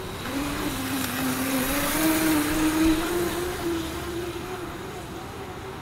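Razor MX350 electric mini dirt bike's motor whining, rising in pitch as it speeds up, then holding steady and fading away.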